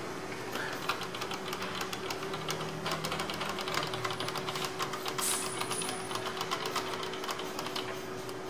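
Quick light clicking and metal handling as the two screws on a sealing machine's upper mould assembly are snugged down, not yet fully tightened, over a steady hum.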